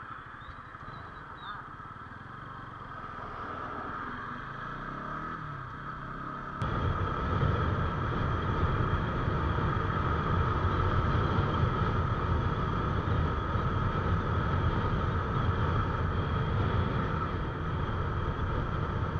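Bajaj Pulsar NS200 motorcycle running on the road, its engine mixed with wind and road noise. The engine note rises and falls briefly about five seconds in. After an abrupt cut a little later, the engine, wind and road noise are louder and steady.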